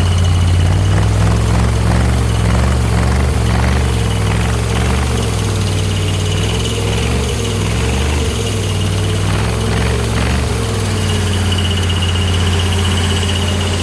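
Engine-driven air compressor running steadily, a loud low drone with a slow wavering beat from about a second in until about eleven seconds in.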